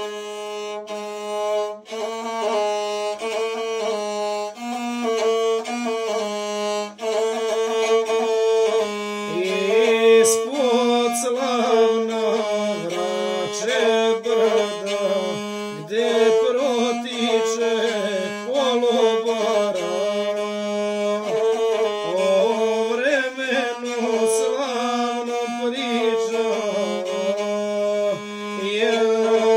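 Gusle, the single-string bowed folk fiddle, playing a nasal, busily ornamented melody that starts suddenly out of silence.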